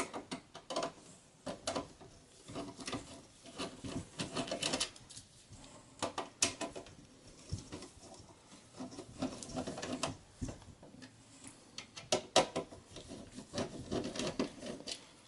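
Phillips screwdriver backing out the three power-supply screws at the back of a Dell Optiplex 7020 SFF case: faint, irregular small clicks and scraping, with a few sharper ticks.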